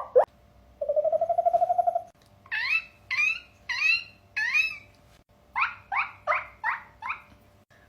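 A person making animal-like noises with the voice: a short fluttering trill about a second in, then two runs of short squawking calls that rise and fall in pitch, about two to three a second.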